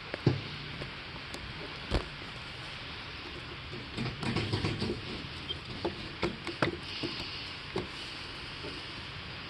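Scattered knocks and clunks with a short burst of rattling about four seconds in, as the cylinder of a 2015 Kawasaki KX85 two-stroke engine is wiggled loose and worked up its studs during a top-end teardown.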